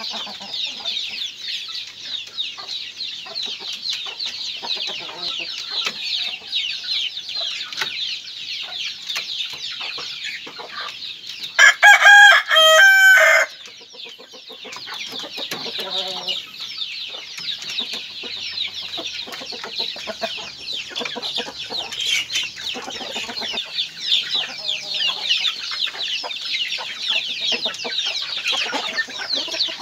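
Native chickens in a yard: a rooster crows loudly once, about twelve seconds in, and hens cluck at a few points, over a constant high-pitched chirping.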